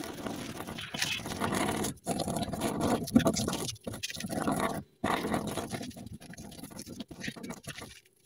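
Brush stippling and scrubbing liquid resin into fiberglass mat on a mold: a rapid, irregular dabbing and scratching, broken by a few brief pauses.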